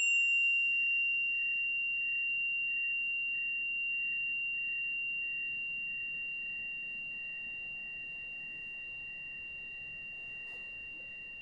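Tuning fork ringing after being struck: one high, steady tone that slowly fades. A fainter, higher overtone dies away within the first second.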